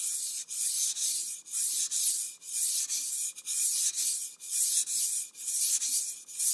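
A chef's knife being sharpened on a wet whetstone: the blade scrapes across the stone in steady back-and-forth strokes, about two a second.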